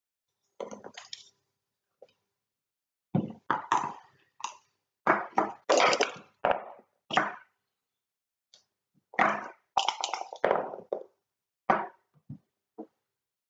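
Backgammon checkers clacking against one another and onto the board as a hand plays moves quickly, in bursts of sharp clicks. Near the end come the dice rattling and landing on the board.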